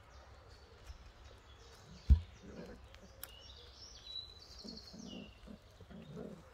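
Wild birds chirping and singing, with one loud low thump about two seconds in and a few softer low sounds near the end.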